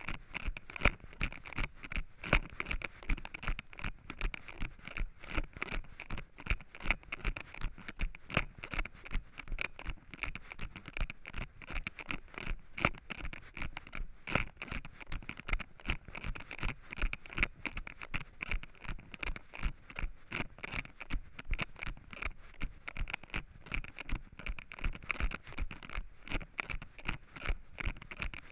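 Running footsteps on a dirt trail covered in fallen leaves, landing in a quick, even rhythm of about three steps a second, each with a crunch and rustle of leaves.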